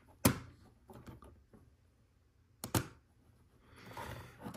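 Plastic Lego Technic pieces being handled and snapped together: a sharp click about a quarter second in, a quick double click near three seconds, and soft rustling of parts toward the end.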